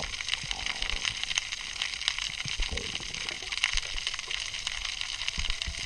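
Underwater ambience among an oil rig's encrusted legs: a steady dense crackle of fine clicks, typical of snapping shrimp on the structure, with a few soft low knocks.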